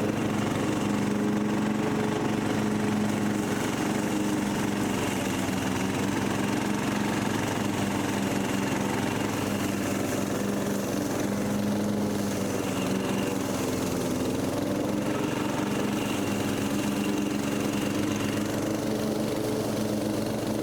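Newly rebuilt Briggs & Stratton 17.5 HP lawn mower engine running steadily at a constant speed, with a brief slight dip in pitch about two-thirds of the way through.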